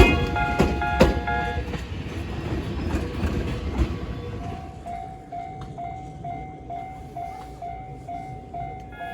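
Electronic level crossing warning bell ringing in quick repeated tones while a train passes over, its wheels knocking on the rail joints and its rumble dying away after about four seconds. From about halfway the bell is heard as a plainer single repeating tone, about two and a half strikes a second.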